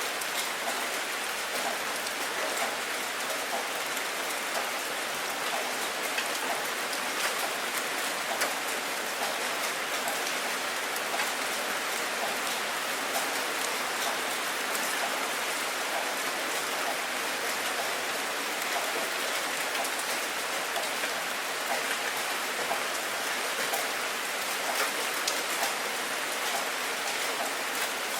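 Steady rain falling, a continuous even hiss with many individual drops pattering on a surface.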